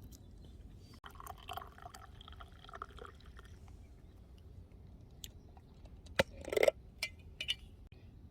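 Liquid poured into a cup for about two seconds, with small cup clinks. About six seconds in, a sharp click and a short louder burst follow.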